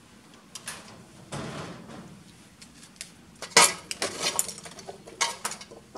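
Clattering and knocking of wooden craft sticks and small tools being gathered into a metal tray on a workbench. It is a string of uneven knocks, loudest about three and a half seconds in.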